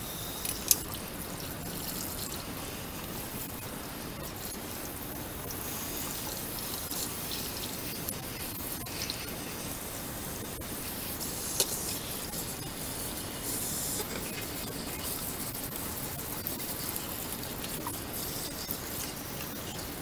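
Tap water running and splashing over a vacuum cleaner's pleated filter and plastic dust-case parts in a washbasin, with a couple of sharp knocks of the parts.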